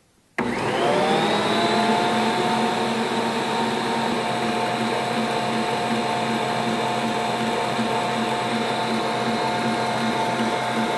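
Electric stand mixer switched on about half a second in. Its motor spins up with a rising whine over about a second, then runs at a steady speed, its twin wire whisks beating egg yolks as oil is added to emulsify mayonnaise.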